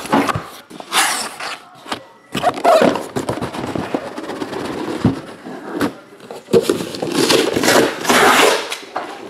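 Cardboard shipping case being handled, with shrink-wrapped boxes of trading cards scraping and sliding against the cardboard, in several rustling bursts with a few knocks as the boxes are set down.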